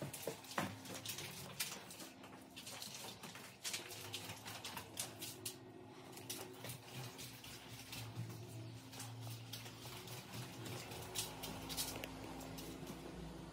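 Faint footsteps and handling noise in empty, bare-floored rooms: irregular soft clicks and taps over a low steady hum.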